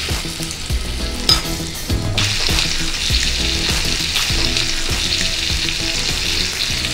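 Masala-marinated fish steaks sizzling in hot oil in a heavy cast-iron pan as they are laid in one by one, the sizzle growing louder about two seconds in as more pieces go in. A brief click just over a second in.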